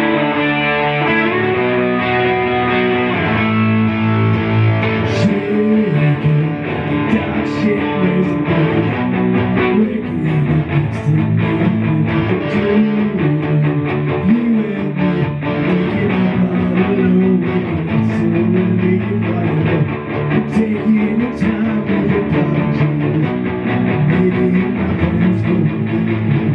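Electric guitar played through an amplifier, a run of changing notes and chords with a light overdrive.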